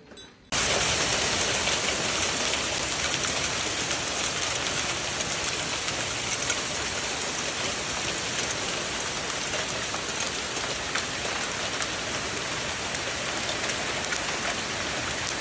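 Heavy rain falling steadily, starting abruptly about half a second in.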